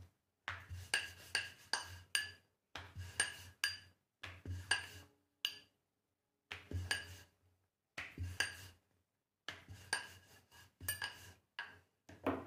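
Rolling pin working paratha dough on a round rolling board: repeated back-and-forth strokes, each with a low rumble and small clacks and knocks of the pin against the board, in short bursts with a brief pause midway.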